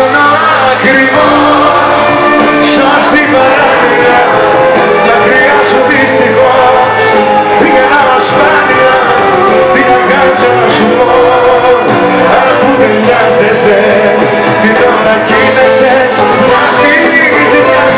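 Loud live Greek laïko band music with a male lead singer singing over bouzouki, electric guitar and keyboards.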